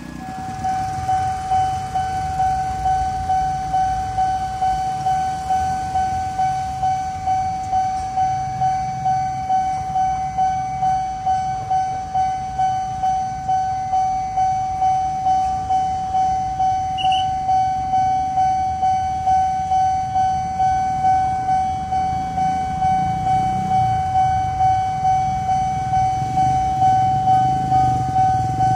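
Railway level-crossing warning alarm: one steady, high electronic tone pulsing evenly a bit more than once a second, over the low rumble of motorbike traffic.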